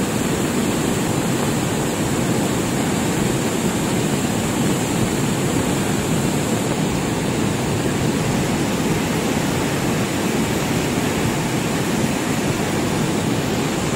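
Cold lahar from Semeru volcano, a flood of volcanic mud, water and debris, rushing down the river channel with a loud, steady, low rush that keeps on without let-up.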